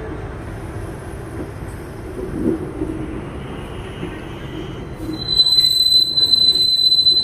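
Train running slowly over the rails with a low rumble. About five seconds in, a loud, steady, high-pitched squeal of steel wheels on rail starts and holds, with fainter squeals before it.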